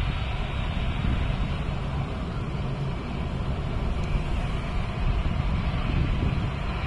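Airbus A380's four jet engines running at low taxi power as the airliner rolls past: a steady rushing hum. A low buffeting rumble of wind on the microphone runs under it.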